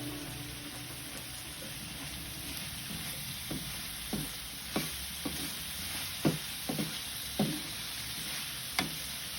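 Minced pork sizzling in a hot pan as it is stir-fried after seasoning with soy and fish sauce. From about a third of the way in, the spatula knocks against the pan several times.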